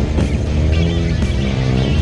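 Background music with heavy bass and pitched parts that bend and glide.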